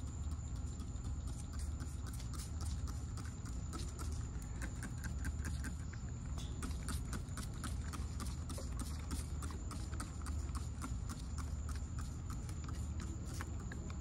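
Plastic trigger spray bottle pumped rapidly and repeatedly, about three to four short spritzes a second, each a sharp click-and-spray, as it mists tomato leaves.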